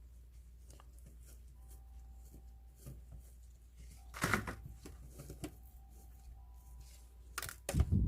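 Hands working succulents and potting soil in a pot: soft rustles and small clicks, with a louder rustle about four seconds in and a louder knock and rustle near the end.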